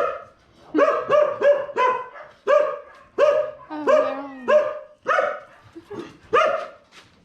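Dog barking over and over in short, sharp barks, about two a second.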